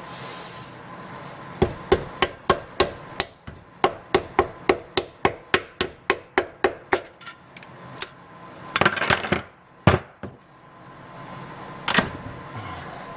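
A black-headed mallet tapping a piston down through a ring compressor into the cylinder bore of a Subaru 2.5L SOHC engine block: about twenty quick taps at roughly four a second. Then comes a short clatter and a few single knocks.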